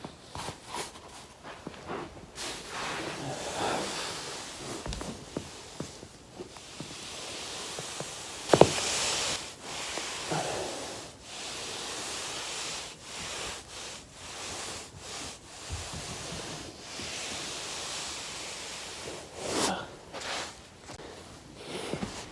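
Rustling and soft scuffing of a body rolling back and forth over a foam roller, with scattered small clicks and one loud sharp crack a little over eight seconds in.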